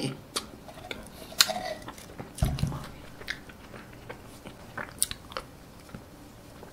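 Close-up mouth sounds of eating a spoonful of vanilla ice cream: scattered wet clicks and lip smacks. There is a sharp click about one and a half seconds in and a low thump a second later, then only small clicks.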